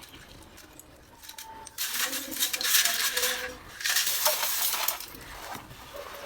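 Roasted multani mitti (Fuller's earth clay) crunching as it is bitten and chewed: crisp crackling in two spells, one about two seconds in lasting nearly two seconds and a shorter one about four seconds in, with scattered small clicks between.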